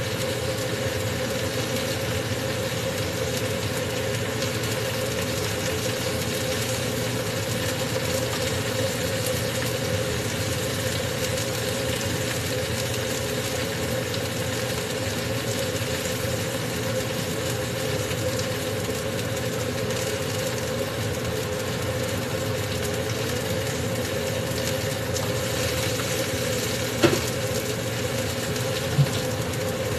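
A steady motor hum over a constant hiss, with two short knocks near the end.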